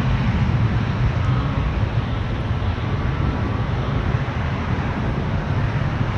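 Distant rumble of an Airbus A330-200's two Rolls-Royce Trent 700 engines at takeoff power as the airliner climbs away, a steady low roar slowly fading.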